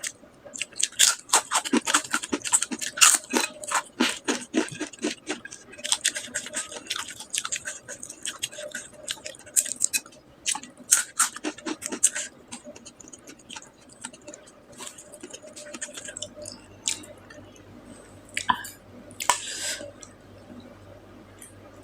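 Close-miked eating sounds: chewing and wet mouth smacking, rapid and dense for the first dozen seconds, then sparser, with a few separate clicks and a short rustling burst near the end.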